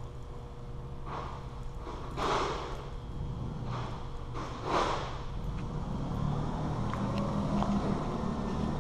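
A plastic bag remover machine running: a steady low motor hum that grows a little louder after about five seconds. Four short hissing swishes come in the first five seconds.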